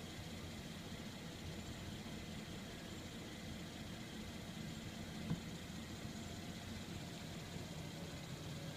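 Mercedes-Benz E-Class estate's engine idling with a steady low hum while the car stands still, with one short click about five seconds in.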